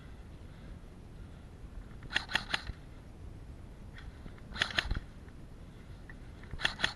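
Airsoft rifle firing three short bursts of rapid snapping shots, about two seconds apart.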